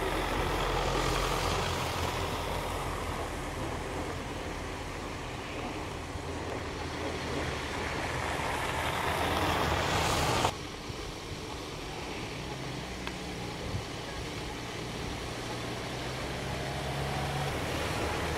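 Vehicles fighting for grip in slushy snow: first a Hyundai SUV's engine running under a growing hiss of tyres churning slush, which cuts off abruptly about halfway through. Then a Ford van's engine running with a faint rising whine as it works its wheels in the slush.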